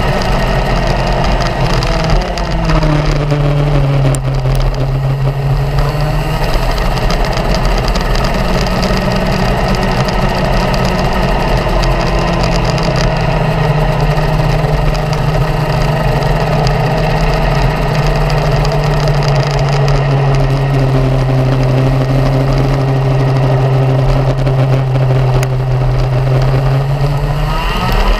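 Racing go-kart engine running at speed, heard from the kart itself. Its note drops about two seconds in, climbs again, holds steady for a long stretch, then rises sharply near the end.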